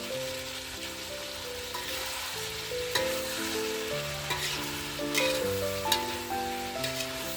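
Food sizzling as it fries in a pan, stirred with a few sharp scrapes and clicks of the utensil against the pan, over gentle background music of held notes.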